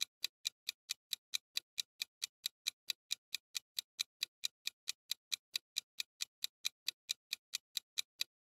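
Countdown timer sound effect of clock ticks, fast and even, about four ticks a second.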